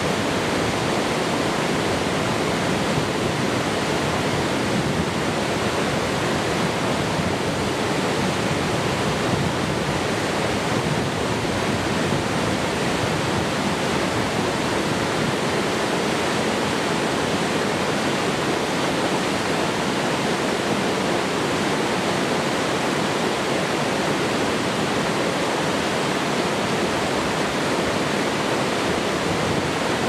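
Small mountain waterfall pouring over rocks into a churning pool: a steady, unbroken rush of falling water.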